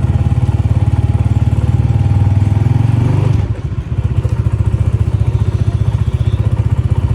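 Honda CG125's single-cylinder four-stroke engine running steadily with an even, rapid exhaust pulse. The level drops briefly about three and a half seconds in, then the engine settles back to a steady run.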